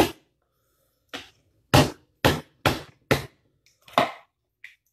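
Kitchen knife chopping through cooked lobster shell against a cutting board: about eight sharp knocks at uneven intervals.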